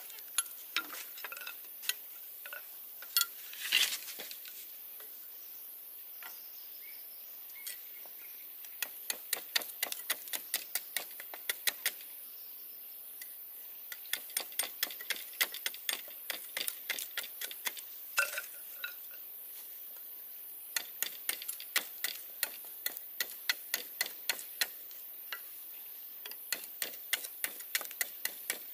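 Light, sharp taps coming in runs of about three or four a second, with short pauses between the runs.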